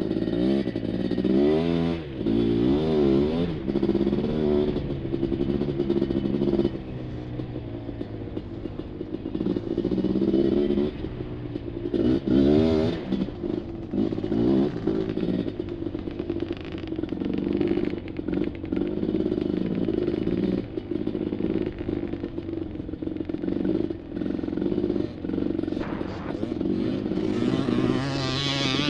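Suzuki LT500R Quadzilla quad's 500 cc two-stroke single-cylinder engine running under way, its revs rising and falling again and again as the throttle is worked, with a louder rise near the end.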